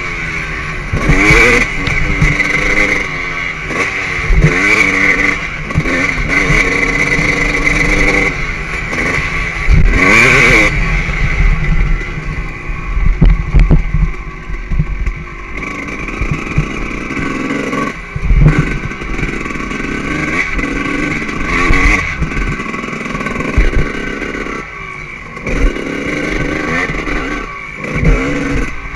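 2003 Suzuki RM 250's single-cylinder two-stroke engine, heard from on the bike, revving hard and backing off again and again, its pitch climbing and falling with each burst of throttle.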